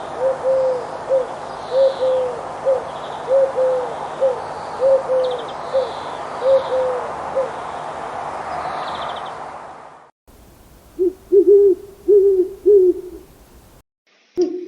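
Owl hooting: a steady series of hoots in repeated long-then-short pairs over a low background hiss. After a cut, a second recording follows with four hoots, and a louder call begins near the end.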